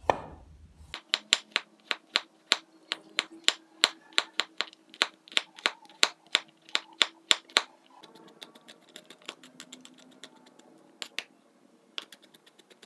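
Cleaver blade striking a wooden cutting board as it slices garlic cloves: steady chops about three or four a second, then lighter, quicker taps for the last few seconds.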